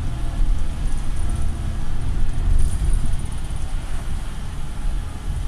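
Volvo single-deck bus heard from inside the passenger saloon while under way: a steady low rumble of the diesel engine and road noise.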